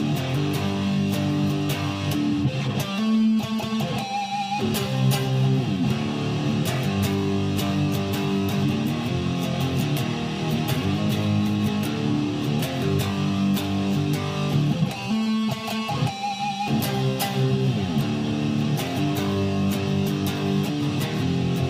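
Guitar music: strummed chords in a repeating phrase that thins out briefly about three seconds in and again about fifteen seconds in.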